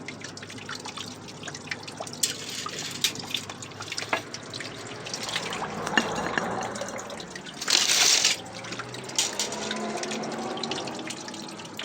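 Water dripping and trickling from a leaking 12-inch water main, escaping where the pipe is badly corroded, with many small irregular drips over a steady background. A louder, short rush of noise about eight seconds in.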